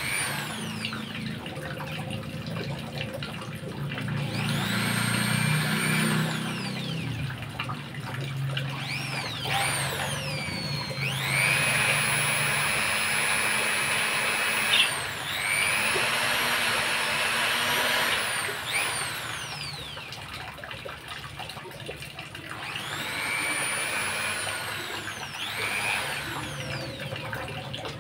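Corded electric drill run off-load in several bursts, its motor whine rising as the trigger is squeezed and falling away as it is released. The longest and loudest runs come about halfway through, one cutting off suddenly.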